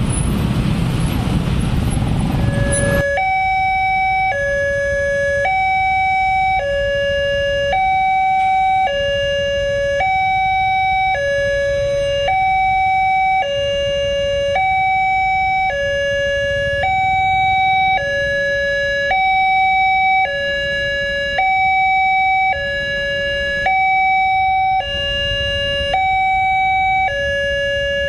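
Street traffic with motorbikes for the first three seconds. Then a railway level-crossing alarm sounds from the horn loudspeaker on the signal post, warning of an approaching train. It is a two-tone electronic hi-lo signal, alternating between a lower and a higher tone about once a second.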